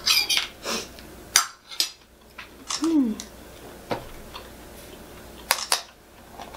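Metal forks and dishes clinking at the table: a handful of separate sharp clicks and clatters of cutlery on plates and takeout containers.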